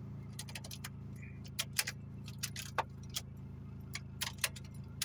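Chrysler PT Cruiser engine idling steadily and refusing to shut off even with the ignition switched off, a fault the owner puts down to the immobilizer/RKE module. Over the idle come scattered sharp clicks and light jingling of a key ring and fob being handled.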